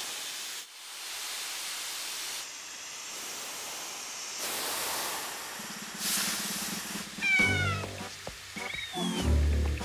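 A steady hiss of steam fills the first few seconds. In the last few seconds come a cartoon cat's short cries, each gliding down in pitch, over a low steady musical tone.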